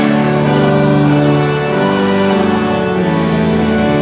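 Church hymn music: sustained organ chords, held and changing every second or two, with the robed choir's voices blended in.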